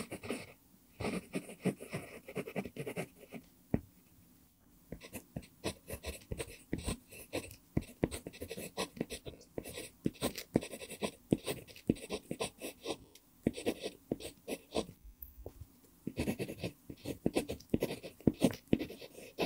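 Pentel PG5 mechanical pencil with a mumpingo (African blackwood) wood barrel writing Korean script on lined paper. The lead makes quick, scratchy strokes, with a short pause about four seconds in and another near fifteen seconds.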